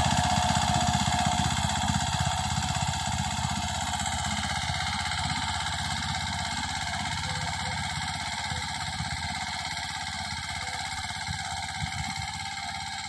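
Mahindra Yuvraj 215 tractor's single-cylinder diesel engine running steadily under load while pulling a cultivator, with a fast even thudding beat, growing slowly fainter as the tractor moves away.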